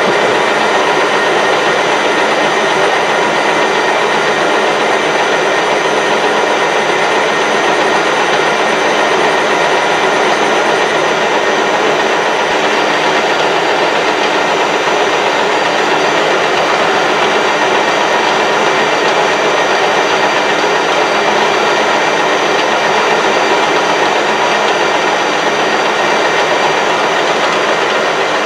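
Metal lathe running steadily with its chuck spinning as a tool turns a 60-degree point on a lathe centre: a continuous mechanical whir of the machine with the cut.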